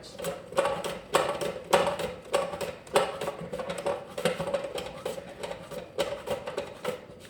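A raw potato pushed back and forth across a mandoline slicer's blade, cutting chips in quick rhythmic strokes about two a second.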